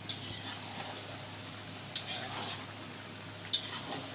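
Chicken curry sizzling in a pan while a spoon stirs it, with sharp scrapes of the spoon against the pan near the start, around the middle and near the end.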